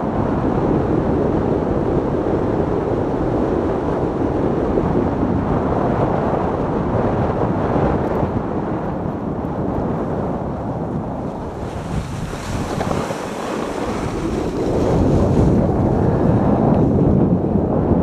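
Sport luge sliding fast down a packed-snow toboggan track: a steady rumble from the runners on the snow, mixed with wind buffeting the microphone. About two-thirds of the way through, the rumble thins to a higher hiss for a few seconds, then comes back louder.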